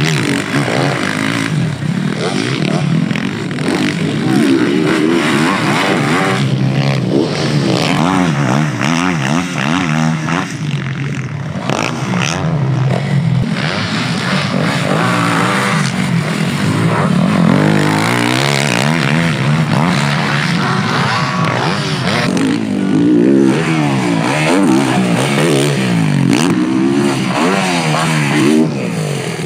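Yamaha YZ450F four-stroke motocross bike being ridden hard, the engine revving up and falling back over and over as the throttle is opened and closed.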